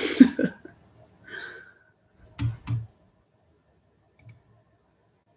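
Two sharp clicks at a computer, about a third of a second apart, then a faint tick near the end.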